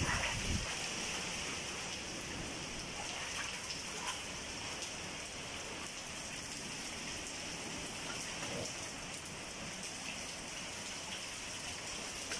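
Typhoon rain falling steadily, an even hiss that keeps up without a break.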